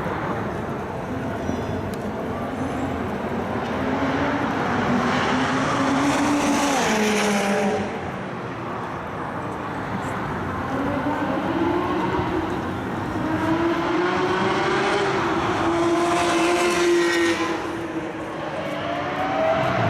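High-performance car engines running on a circuit, revving up as they accelerate past. The pitch climbs and swells twice, then drops off sharply about seven and seventeen seconds in, and rises again near the end.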